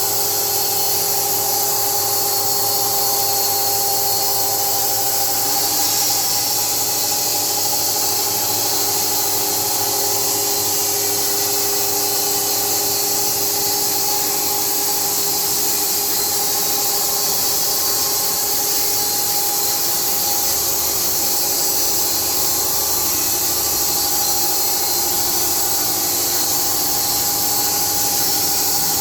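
SMFA 1000 horizontal band sawmill running, its band blade sawing lengthwise through a beech log. A steady loud hiss with a constant whine underneath.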